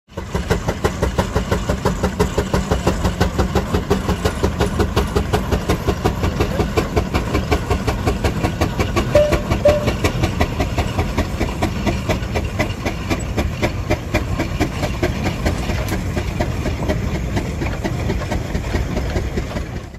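Steam engine running, its exhaust chuffing in a fast even rhythm of about five beats a second with a steady hiss of steam.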